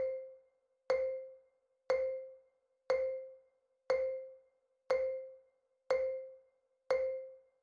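Quiz countdown timer sound effect: a short pitched ping once a second, eight in all, each dying away quickly.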